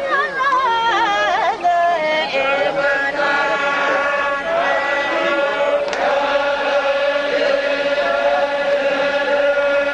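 Zikri chogan devotional chant. For the first two seconds a voice sings a wavering, ornamented line, then it settles into one long steady held note.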